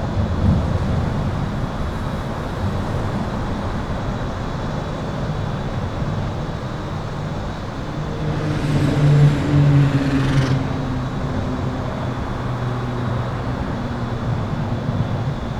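Highway traffic from under an overpass: a continuous rumble of tyres and engines, with a low thump just after the start. About halfway through, a heavier vehicle passes, its engine note and tyre hiss swelling and then fading. A thin, steady, high-pitched electrical hum runs through it all.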